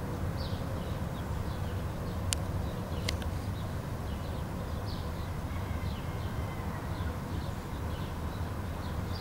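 Outdoor ambience: a steady low rumble with many short, high chirps scattered throughout, and two sharp clicks a couple of seconds in.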